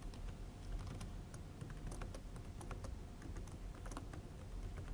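Typing on a computer keyboard: a run of quick, irregular key clicks as a line of code is entered.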